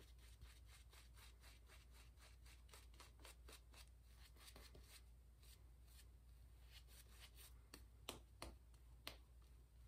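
Vintage Peerless shaving brush swishing lather over a face: a steady run of faint, quick strokes, about four or five a second, with three louder strokes near the end.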